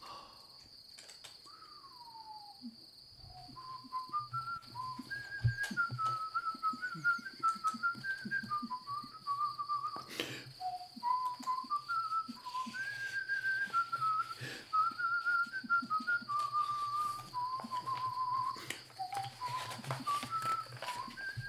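A person whistling a tune of quick, changing notes, beginning about three seconds in after a short falling whistled slide.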